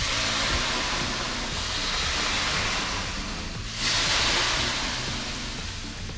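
Water ladled onto hot sauna stones hissing and sizzling into steam (löyly): a burst at the start that dies away, then a second, slightly louder burst about four seconds in.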